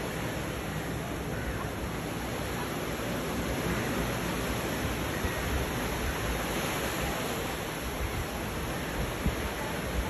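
Ocean waves washing onto a sandy beach and over rocks: a steady surf hiss with an uneven low rumble, and a brief thump near the end.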